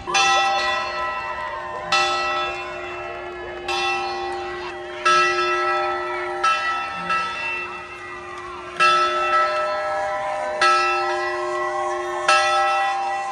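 Large campus bell in a standing frame struck over and over, about every two seconds, each strike ringing on under the next.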